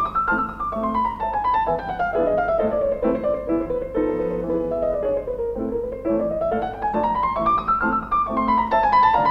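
Solo classical piano playing quick, even runs of notes that sweep up the keyboard, fall back down over several seconds, and climb again near the end.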